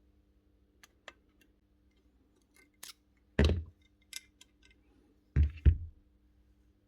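Parts of a 23-gauge pin nailer being worked apart by hand: a few light clicks of small parts, then a heavy thump about halfway through and two more thumps in quick succession near the end.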